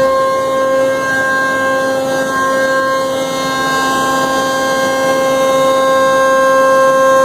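CNC router spindle whining at a steady high pitch while the bit mills plywood, with a rough cutting noise under the whine.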